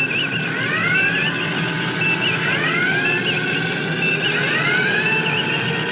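Original Star Trek series electronic sound effect: pairs of rising electronic sweeps about every two seconds over a steady low hum, with a quick warbling beep pattern repeating high above.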